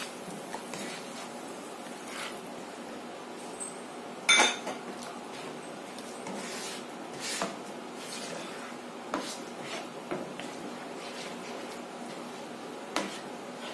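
Spatula scraping and knocking around a frying pan while stirring a thin curry gravy, in scattered short clicks and scrapes. There is one sharp, ringing clink about four seconds in.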